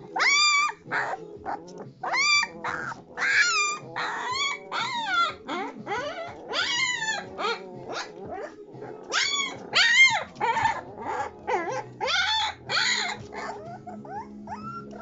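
Three-week-old Malamute puppies whining and squealing in a string of high cries that rise and fall, often several at once.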